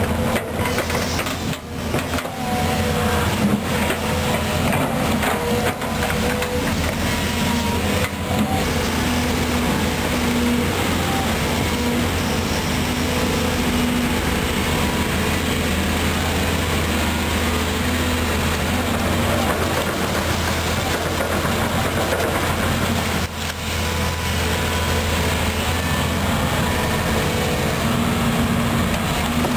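Volvo EC210B crawler excavator working, its diesel engine running steadily under load as it pushes dirt and travels on its tracks. A few sharp knocks come around two seconds in and again around eight seconds in.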